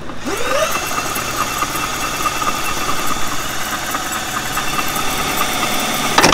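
Cordless drill spinning the pinion of a rebuilt Ford 8.8 IRS differential, turning the 3.73 ring gear as a test spin of the freshly set-up gears. A whine rises as it spins up, holds steady, then stops abruptly with a click near the end.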